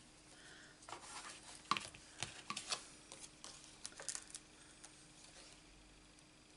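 Light clicks and taps of hands handling small die-cut card pieces and a clear plastic case on a craft mat, with a run of taps about a second in and a short cluster near four seconds.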